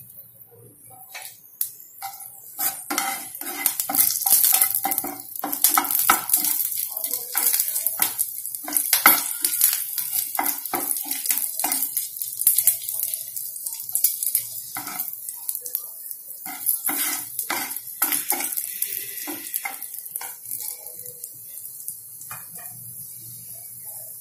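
Green chillies sizzling in hot oil in a non-stick frying pan, with a wooden spatula stirring them and knocking and scraping against the pan in many short, irregular strokes.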